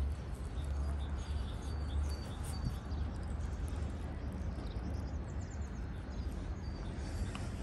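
Outdoor ambience: a steady low rumble with a noisy haze, and small birds chirping faintly now and then, with a short run of chirps about five seconds in.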